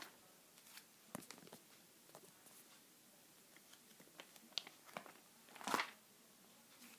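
Pages of a ring binder turning, their clear plastic sheet protectors crinkling and rustling in a few short bursts, the loudest one near the end.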